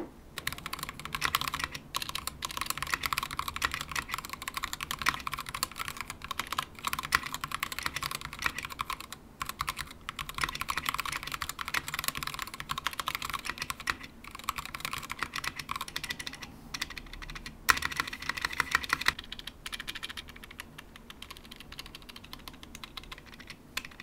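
Fast typing on an Akko Sakura Jelly TKL mechanical keyboard with Gateron Pink switches in a stacked-acrylic case: a dense run of soft, light key clacks with a few brief pauses. There are no deep, thocky notes; the tightly packed acrylic build leaves little room for resonance.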